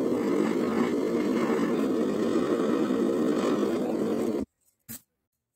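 Gas soldering torch flame burning steadily while heating a twisted copper wire ring for hard soldering. It cuts off suddenly about four and a half seconds in, followed by a short faint click.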